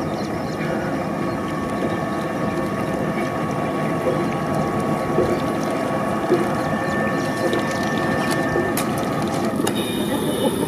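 Fishing reel being cranked steadily to retrieve line, a continuous mechanical gear whirr.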